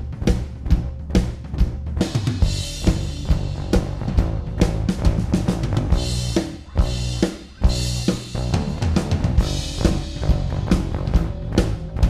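Recorded drum kit and bass guitar playing a groove together, kick and snare hits over held bass notes. Cymbal crashes come in a few times, and the drums drop out briefly about two-thirds of the way through before coming back in.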